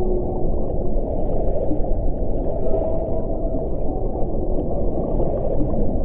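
Underwater whale calls over a dense, steady low rumble of ocean noise, with faint, short, steady tones rising out of it, the clearest about halfway through.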